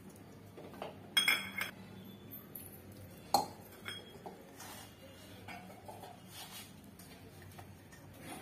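Stainless steel bowl clinking while hands mix crumbly flour dough in it: a ringing metallic clink a little over a second in, a sharp knock at about three and a half seconds, then small taps over soft rubbing of the dough.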